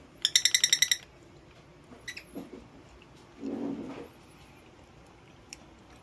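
Lovebird giving a loud, fast burst of sharp, high chirps, about a dozen a second, lasting under a second, then a few faint short calls and a softer, lower sound a little later.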